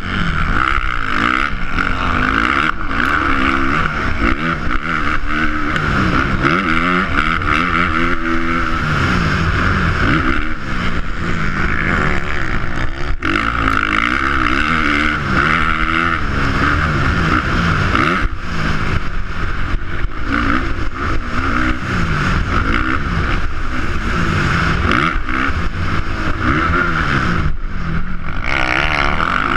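Dirt bike engine revving up and down again and again as the rider accelerates and backs off through the ruts, corners and jumps of a motocross track.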